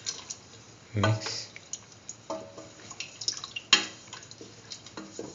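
Spatula stirring a watery chickpea and bell pepper stew in a pan, with water freshly added: liquid sloshing and dripping, with small scrapes and clicks of the spatula against the pan and one sharp knock a little before four seconds in.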